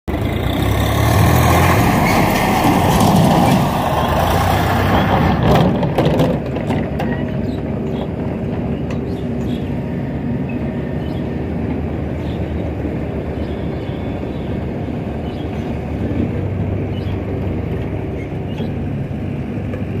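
Diesel engines of a SANY crawler excavator and a farm tractor running while mud is loaded. There is a louder rushing noise for the first six seconds or so, then a steady low engine drone with scattered knocks.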